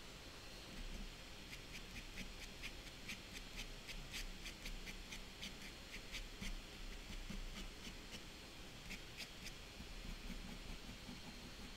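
Fine-tip ink pen scratching rapid short strokes across toned paper while drawing grass, a quick, faint run of scratches that starts about a second and a half in and dies away a couple of seconds before the end.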